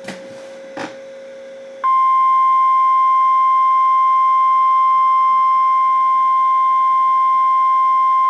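A faint hum and two brief clicks, then about two seconds in a loud, steady single-pitch alarm tone starts and holds: the NOAA Weather Radio 1050 Hz warning alarm tone that signals an Emergency Alert System broadcast is about to follow.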